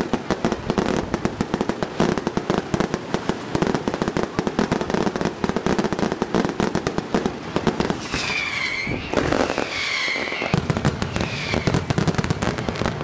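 Fireworks display: a dense, continuous rattle of rapid bangs and crackles. About two-thirds of the way through, three high whistles rise and fall in pitch.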